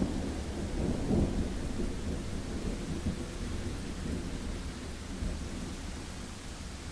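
Thunder rumbling over steady heavy rain. The rumble swells about a second in and then slowly dies away.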